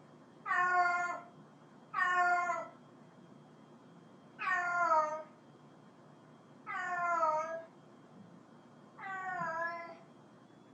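Cat meowing five times, each call under a second and dropping slightly in pitch at its end, with about two seconds between calls.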